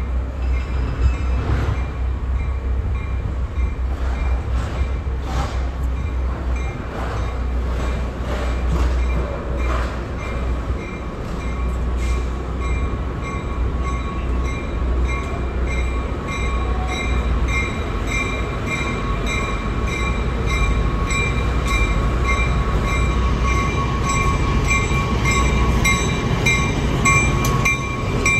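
LIRR MP15AC diesel switcher locomotives hauling a ballast work train, approaching and passing close by: a continuous low diesel rumble with steel wheels on the rails. A rhythmic high metallic ticking grows louder as the locomotives come alongside near the end.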